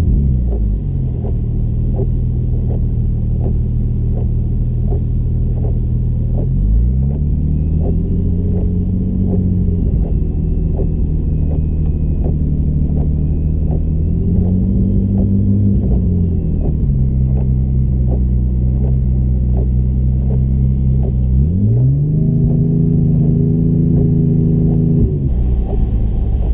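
Porsche engine running, its speed stepping up, holding, then dropping back several times, with a regular tick about three times a second throughout. The engine is being checked for misfires.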